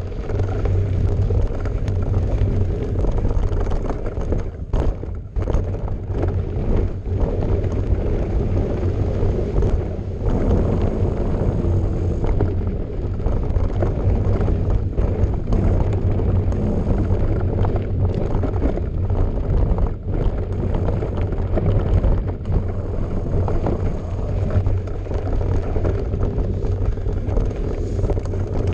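Wind rumbling across the microphone of a handlebar-mounted camera, with a bike's knobby tyres rolling and rattling over a rough dirt trail.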